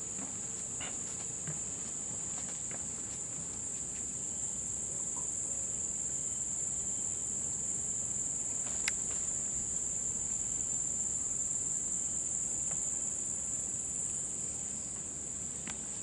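A steady, high-pitched drone of rainforest insects, one unbroken band of sound. A single sharp click about nine seconds in.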